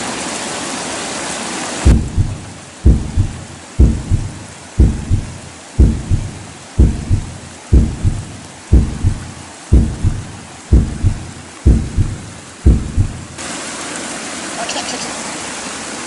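Rushing stream water over a weir, then a heartbeat sound effect of about twelve loud lub-dub beats, one a second, with the water muffled beneath it. The beats stop and the full rush of the water comes back near the end.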